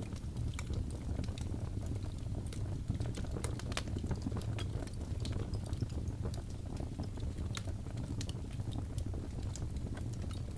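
Wood fire burning in a fireplace: a steady low rumble of the flames with frequent small, sharp crackles and pops scattered irregularly throughout.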